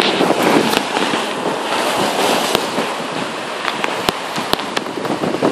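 Heavy rain, a dense hiss with many sharp irregular taps as raindrops strike the phone's microphone.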